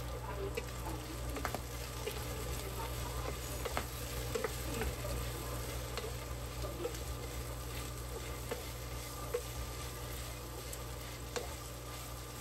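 Ground pork and chopped bottle gourd sizzling in a non-stick frying pan, stirred with a wooden spatula that gives scattered light clicks and scrapes against the pan, over a steady low hum.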